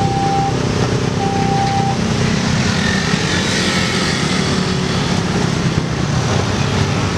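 Road vehicles' engines and tyres running at a busy railway level crossing, with the crossing's electronic warning alarm giving two more long, even beeps in the first two seconds and then falling silent.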